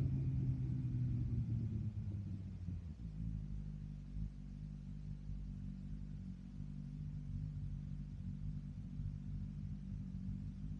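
BMW S1000RR's inline-four engine through an M4 aftermarket exhaust, its note falling as the revs drop off after hard acceleration. About three seconds in, it settles into a steady low-rev run.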